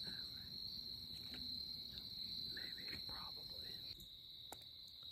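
A faint, steady, high-pitched chorus of crickets. Soft, voice-like sounds come and go over it in the first three seconds, and there is a single click about four and a half seconds in.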